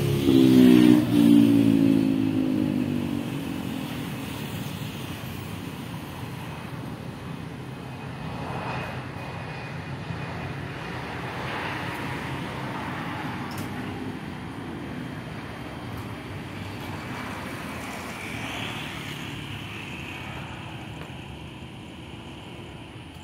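A vehicle passing close by, its engine pitch falling as it goes past in the first two seconds, then dying away into a low steady rumble that slowly fades.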